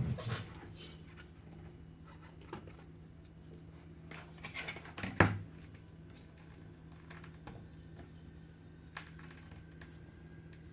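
Small clicks and light scraping of hand tools and parts being handled on an iPhone 7 during a screen repair, with one sharp click about five seconds in, over a steady low hum.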